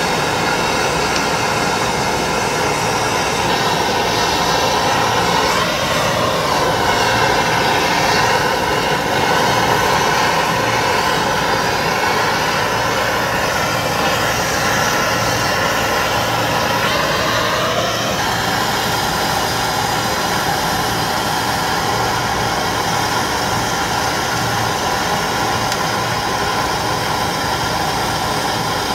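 Hand-held MAP gas torch burning with a steady hiss while heating a copper pipe joint for brazing; its tone shifts about 6 seconds in and again around 18 seconds in.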